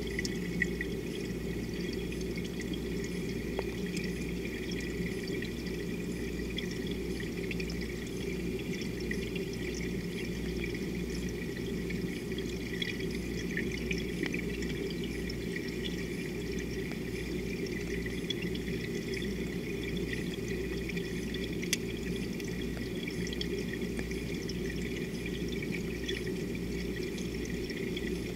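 Steady water noise picked up by a submerged camera, with scattered faint ticks.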